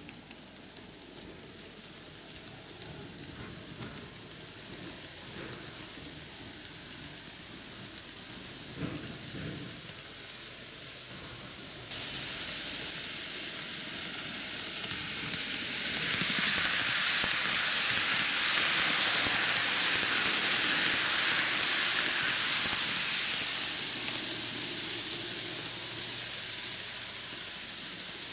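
N-gauge model train (Micro Ace Keio 9000 series, ten cars) running on curved canted track: a steady hissing rattle of wheels on the rails. It grows louder about twelve seconds in, is loudest in the middle as the train runs close by, then fades.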